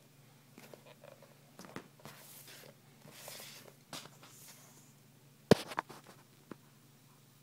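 Close handling noise: soft rustles and scattered clicks, with one sharp knock about five and a half seconds in and a few lighter clicks after it, over a faint steady low hum.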